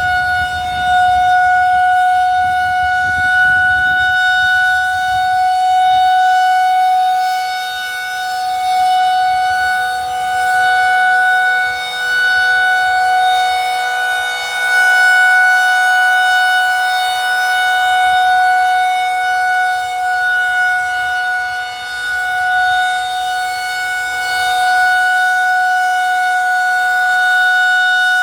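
Federal Signal 2001-130 tornado siren holding a single steady tone during its test, swelling and fading every few seconds as the rotating siren head sweeps past.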